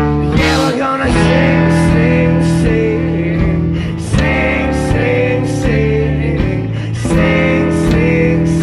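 A small band playing live: strummed acoustic guitar, electric guitar, electric bass and a drum kit keeping a steady beat, with a voice singing over them.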